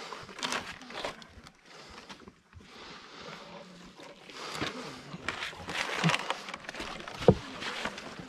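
A climber's heavy breathing in uneven breaths, with clothing rustling, and a single sharp knock about seven seconds in.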